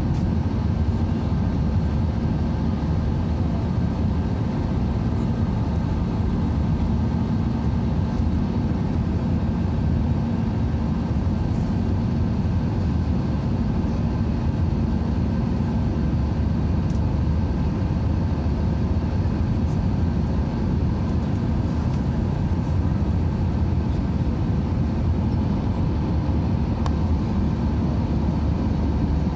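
Steady airliner cabin noise after take-off: a deep, even drone of the jet engines and the rushing airflow, with a few faint steady tones above it.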